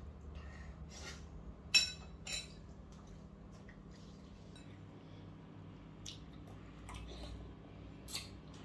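Cutlery and dishes clinking now and then at a meal, the sharpest clinks about two seconds in, over a low steady hum.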